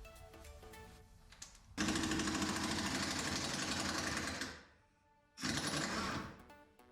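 Impact wrench hammering in two bursts, one of about two and a half seconds and a shorter one of about a second, over light plucked background music.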